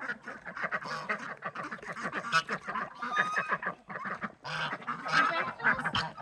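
A flock of domestic poultry calling all at once, many short calls overlapping into a dense, steady chatter.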